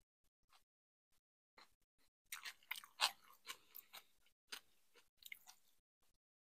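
A person chewing crunchy food: irregular wet crunches and clicks, densest and loudest about three seconds in, stopping shortly before the end.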